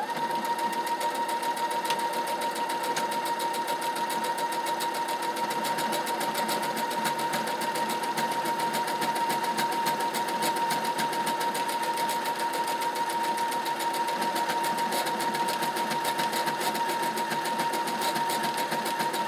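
Brother computerised sewing machine stitching a buttonhole with its automatic buttonhole foot, starting up suddenly and running at a steady speed. It makes a fast, even needle rattle over a steady whine.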